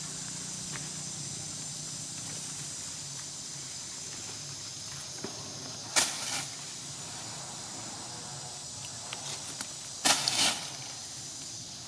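Outdoor forest ambience: a steady high insect hiss over a low hum, broken about halfway through and again near the end by two short, harsh rustling noises, the second one the loudest.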